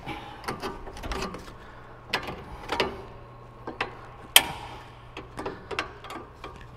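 Irregular metallic clicks and scrapes of a hand tool prying at the metal pad-retaining spring on a Brembo brake caliper, with one sharp click about four and a half seconds in.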